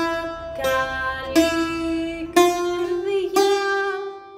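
Bouzouki played slowly, one plucked note about every second, each note held and ringing. The last note is left to ring out and fade away near the end.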